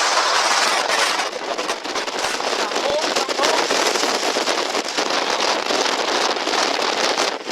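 Very strong wind blowing over a mountain ridgeline: a loud, steady rush with many small crackles through it.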